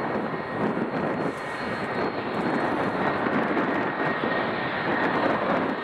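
Boeing 757's two turbofan engines running at taxi power: a steady jet rush with a faint high whine over it, growing slightly louder toward the end.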